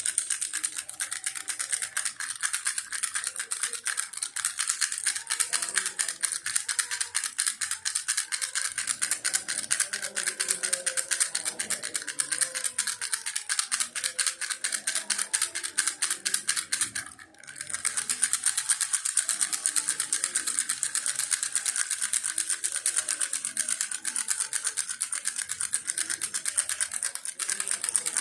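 Baby rattle shaken without pause: a dense, fast clicking rattle that stops for a moment about seventeen seconds in and then carries on.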